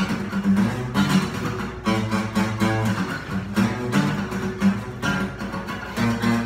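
Acoustic guitar strummed in a steady rhythm, with quick, repeated chord strokes.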